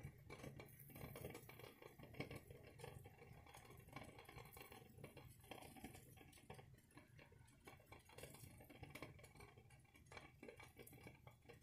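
Near silence: room tone with a faint low hum and scattered faint small clicks.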